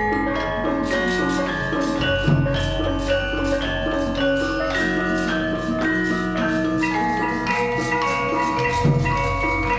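Central Javanese gamelan playing: bronze metallophones and gong-chimes ring out a steady stream of struck notes, with the kendhang drum beneath. Two deeper low strokes stand out, about two seconds in and near the end.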